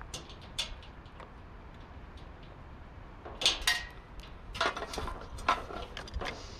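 Light metallic clinks and clatters of parts being handled as a water cooler is dismantled by hand, with the loudest clatter about three and a half seconds in and a few more knocks around five seconds.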